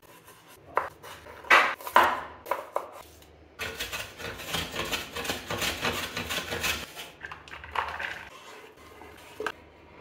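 A chef's knife cutting through a tomato onto a wooden chopping board in a few sharp chops, the loudest sounds here. Then a block of cheese is rubbed fast against a stainless steel box grater for about three seconds, a dense rasping. Near the end come a few lighter scrapes and a tap as the knife sweeps food off the board.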